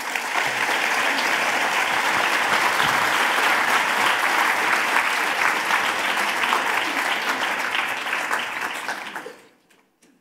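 Audience applauding, many hands clapping steadily, then dying away about nine seconds in.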